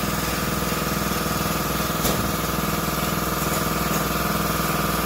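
Motor-driven shop machine running with a steady hum: a low pulsing drone under a thin high whine. One short click about two seconds in.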